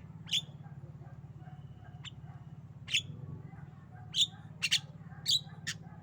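Javan myna giving a string of short, sharp calls, spaced out at first and coming faster over the last two seconds.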